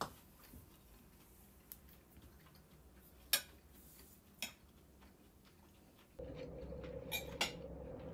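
Light clinks of metal forks against ceramic plates, a few seconds apart, over quiet room tone. About six seconds in, the background changes to a steady faint hum, with two quick clinks close together.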